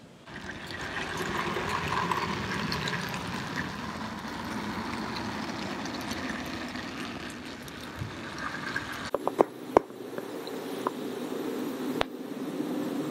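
OO gauge model diesel locomotives running along snowy outdoor track, a steady running noise from their wheels and motors. About nine seconds in the sound changes to a narrower running noise with a few sharp clicks, and one more click comes a few seconds later.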